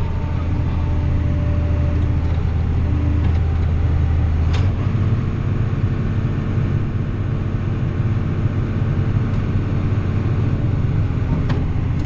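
John Deere 7800 tractor's six-cylinder diesel running steadily, heard from inside the cab, while it powers a grain cart's unloading auger pouring corn. The low drone shifts about four and a half seconds in, with a faint click at that moment.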